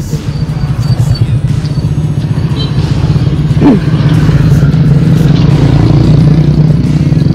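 A motor vehicle's engine running steadily at close range, its note getting louder about a second in.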